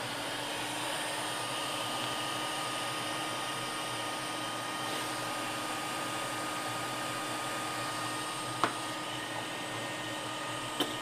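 Hot-air rework station blowing a steady hiss with a faint whine over a MacBook Pro logic board while the re-soldered chip is heated. A single short click comes near the end.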